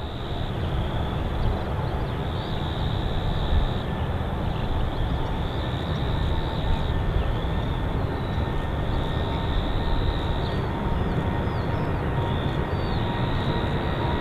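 Jet engines of an Air New Zealand Boeing 787-9 running with a steady rumble and a faint whine as it moves along the runway, getting slightly louder. High chirping comes and goes over it.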